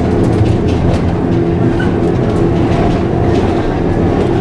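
Historic series 2800 tram running along street track, heard from inside the driver's cab: a steady hum with a few clicks and knocks from the wheels on the rails.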